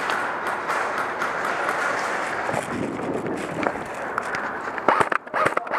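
Airsoft guns firing in an indoor arena: a dense crackle of small shots and BBs striking surfaces, with a quick cluster of louder, sharper snaps near the end.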